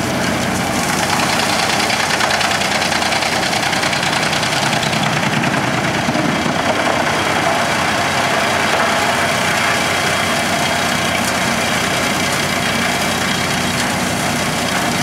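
Tracked wood chipper running under load, chipping logs fed into its spiked feed roller: a steady mechanical noise of engine and chipping that grows a little louder about a second in.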